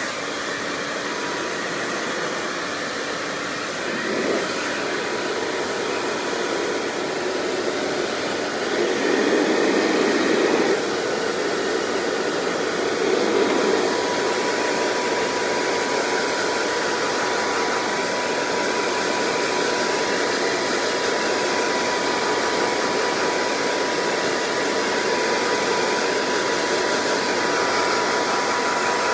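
Blow dryer running steadily, blowing air over freshly bathed cats in a wire cage. A thin, steady whine in its sound grows clearer about halfway through.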